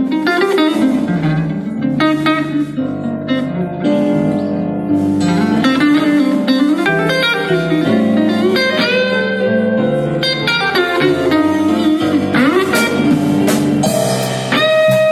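Live blues band: an electric guitar plays the opening lead of a blues number, with bent notes, over a keyboard accompaniment.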